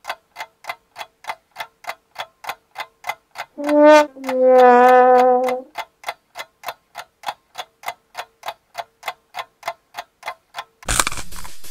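Clock ticking steadily, about three ticks a second, as a tension sound effect. About four seconds in, a brass instrument plays a short note and then a longer, lower held note. Near the end a burst of hiss cuts in.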